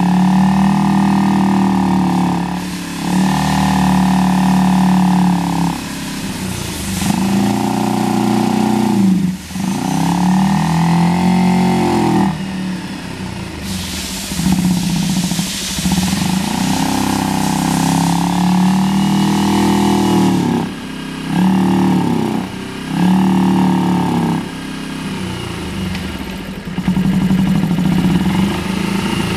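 2009 Kawasaki Ninja 250R (EX250) parallel-twin engine running and being revved repeatedly, each rev held for a second or few before the pitch falls back toward idle.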